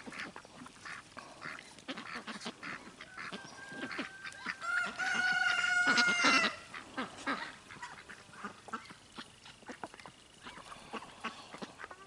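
Domestic ducks calling, with one longer, louder call of about two seconds roughly five seconds in, among scattered small clicks.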